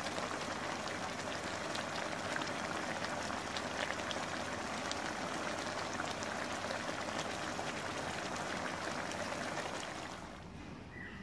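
Thick braising sauce of pork belly and eggs simmering in a pan, bubbling and sizzling steadily with many tiny pops. The sound drops away about ten seconds in.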